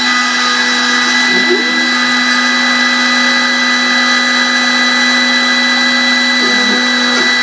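CNC milling machine running while machining aluminium: a steady, loud whine of several fixed tones, with a second tone briefly dipping in pitch and coming back about a second and a half in and again a few times near the end.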